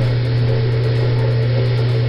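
A steady, loud low hum with one strong pitch, like an AC electric motor running.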